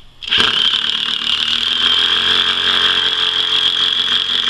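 Bosch 12-volt lithium-ion impact driver driving a 2-inch screw into solid hickory. It starts about a third of a second in and runs steadily under load.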